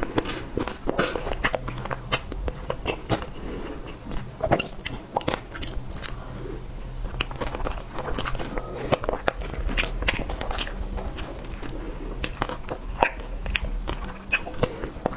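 Close-miked eating sounds: a person biting and chewing, with many quick, irregular mouth clicks, over a faint steady low hum.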